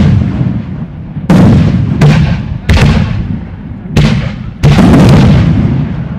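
Aerial firework shells bursting: five loud booms within about three and a half seconds, starting about a second in, each trailing off in a low rumble.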